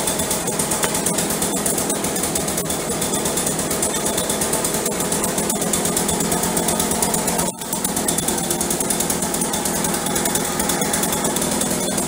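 Echo PB500T backpack blower's two-stroke engine running steadily, with the rush of its fan, after its no-start fault was repaired. The sound drops out briefly about seven and a half seconds in.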